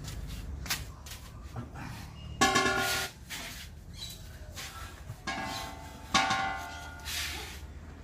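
Empty steel LPG gas cylinders knocking against each other and the car's boot as they are loaded: light knocks, then two loud ringing clangs, about two and a half and six seconds in, each dying away within half a second.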